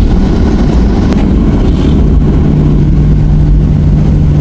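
Airliner cabin noise: the loud, steady low drone of the engines and airflow heard from inside the cabin, with a steady hum coming in about two seconds in and a single click about a second in.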